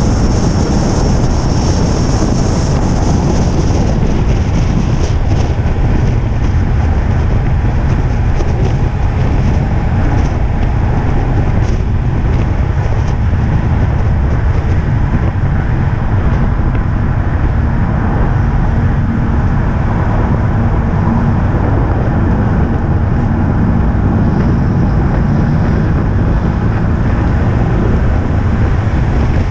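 Onboard sound of a vehicle lapping a wet race circuit: its engine running on with a loud, steady rumble of tyres on wet tarmac and wind. A faint steady tone comes in near the end.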